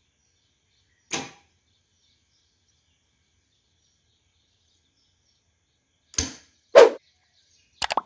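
A 12 V solenoid door lock and its relay switching as a fingerprint unlock is triggered from a phone: a single click about a second in, then two sharp mechanical clacks half a second apart near the end, the second the loudest, followed by two very quick clicks.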